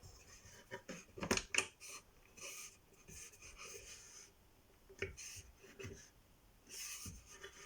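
Faint handling noise at a control panel: a few sharp clicks and knocks, about a second and a half in and again near five seconds, with soft breathy rustles in between.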